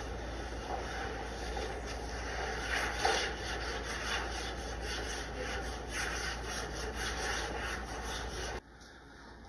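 Hands rubbing and scraping across a large sheet of paper on a drawing board, in irregular strokes over a steady low hum. The sound drops away abruptly about eight and a half seconds in.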